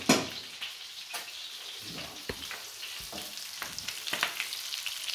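Cod fillets sizzling in butter in a frying pan, with a few knocks and scrapes of a wooden spatula against the pan. The sharpest knock comes right at the start.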